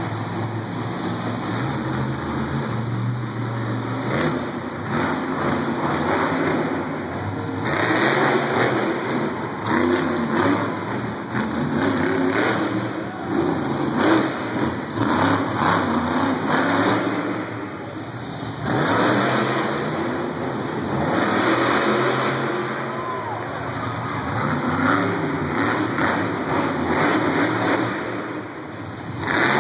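Monster truck engines revving hard again and again, the pitch rising and falling in surges a few seconds apart.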